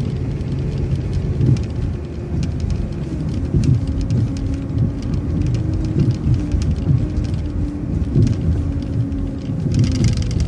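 City transit bus running as it pulls away and drives slowly. Its engine note shifts about two seconds in, with frequent irregular rattles and clicks from the body throughout.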